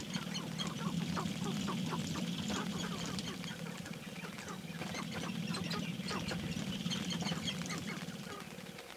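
Sharp-tailed grouse displaying on a lek: many males give quacking clucks and cackles over a steady low buzz from the rapid foot-stamping and tail-rattling of the dancing birds. The buzz stops shortly before the end.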